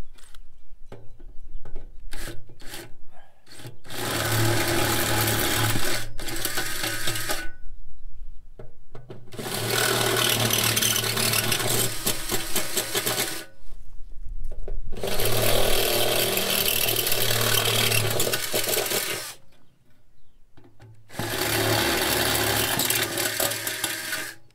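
Cordless drill with a step bit enlarging bolt holes in a metal bucket seat shell: a few short trigger blips, then four separate drilling runs of several seconds each, with pauses between to check the fit.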